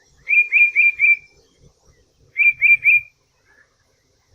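A songbird singing a phrase of clear whistled notes, four in quick succession, then three more about a second later.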